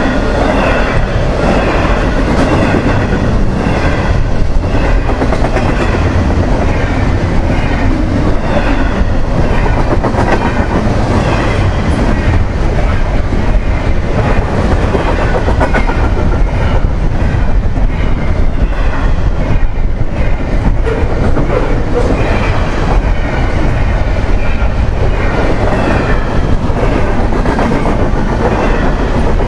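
Double-stack intermodal freight cars rolling past at track speed: a loud, steady rumble and clatter of steel wheels on the rails.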